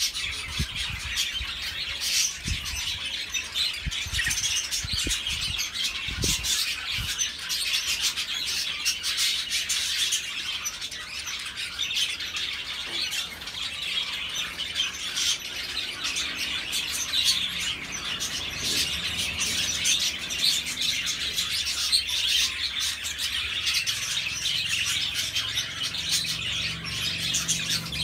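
Budgerigars chirping and warbling, a dense, continuous budgie chatter, with a few low bumps in the first several seconds.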